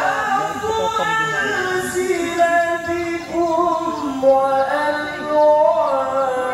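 A man singing solo and unaccompanied into a microphone, holding long notes decorated with wavering melismatic runs.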